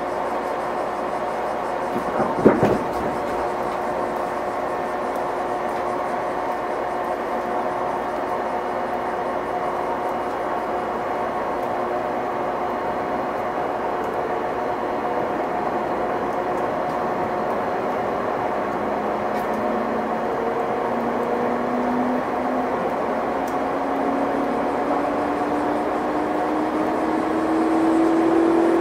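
213 series 0-subseries electric train running, heard from inside the car: steady running noise with a single sharp clack about two and a half seconds in. In the second half a motor hum rises steadily in pitch as the train gathers speed.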